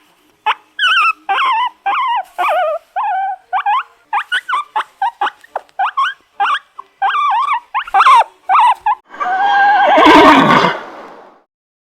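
A quick series of short, high animal calls, each sliding down in pitch, then a loud horse whinny about nine seconds in that lasts a couple of seconds.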